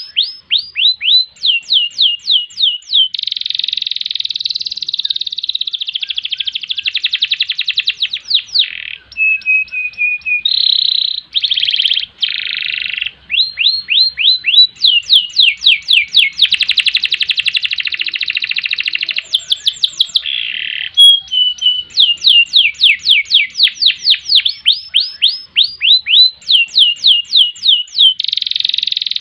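Domestic canary singing a long, unbroken song: runs of rapidly repeated down-slurred notes alternating with long, fast rolling trills, in the vigorous style canary keepers call gacor.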